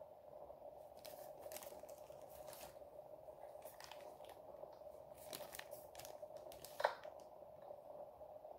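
Clear plastic bags holding model-kit sprues crinkling in gloved hands, in several short rustles, with one sharp click near the end. A steady faint hum runs underneath.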